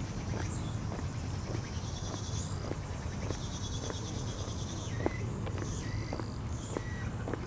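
Insects chirping steadily in the summer grass, over a steady low rumble, with faint footsteps on the paved path about two or three a second.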